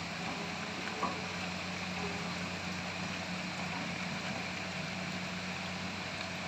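Hitachi excavator's diesel engine running steadily at low revs, with a small knock about a second in.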